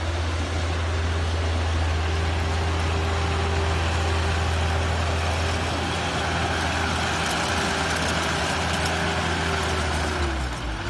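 Diesel engine of a 100 hp crawler tractor running steadily with a low hum; its pitch dips slightly near the end.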